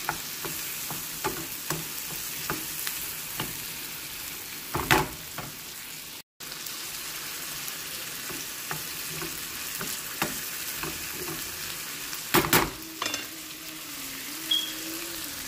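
Onion, tomato and sliced bitter melon sizzling in oil in a skillet while a wooden spatula stirs them, with frequent light clicks and a couple of louder clacks of the spatula against the pan.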